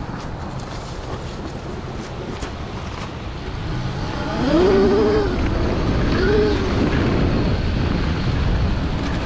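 Electric dirt bike (a Kawasaki KX85 converted with a 72 V Wired Off-road GK-85 motor kit) being ridden, with steady wind rush on the rider's in-ear microphones. About four seconds in it gets louder, and the electric motor's whine rises and falls twice as the throttle is worked.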